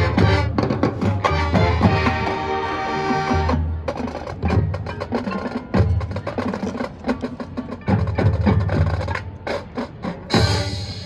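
Marching band playing a percussion-led passage: quick, sharp wood-block-like clicks over repeated low drum hits, with a held chord about two to three and a half seconds in.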